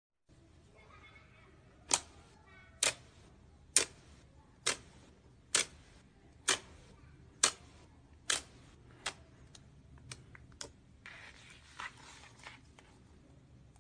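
Clear slime pressed and poked by fingers, giving sharp popping clicks about once a second, then a few softer clicks and a short squishy rustle towards the end.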